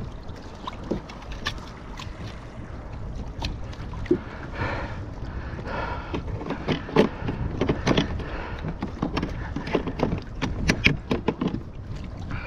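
Wind rumbling on the microphone over a kayak on open water, with scattered sharp clicks and knocks, busiest in the second half, from pliers, hands and a rubber landing net as a hook is worked out of a large fish's mouth.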